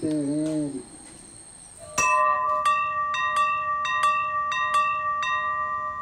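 A low voice holds a note, then stops just under a second in. About two seconds in, bell-like chime music begins: a ringing chord of several tones, re-struck about three times a second.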